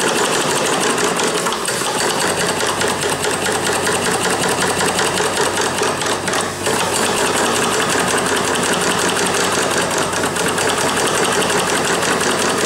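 Stuart 5A model vertical steam engine running fast on compressed air, with a rapid, steady beat of exhaust and clatter of valve gear. The sound dips briefly about six seconds in, where the engine is reversed with its Stephenson link.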